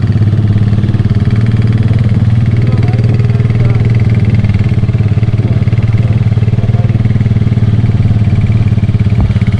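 Motorcycle engine running at a steady cruise while riding, heard close up from a camera mounted on the bike, a steady, even drone with no revving.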